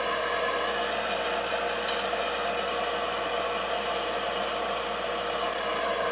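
Steady mechanical hum of a running fan or motor, even in pitch throughout, with a light click about two seconds in and another near the end as metal parts are handled.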